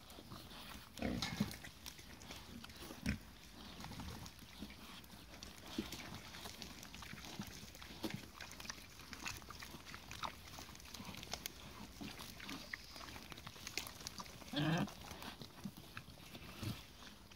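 Mangalica woolly pigs grunting and snuffling as they nose and bite a pumpkin, with many small crunching and clicking sounds of chewing and rooting in the mulch. Louder grunts come about a second in and again near the end.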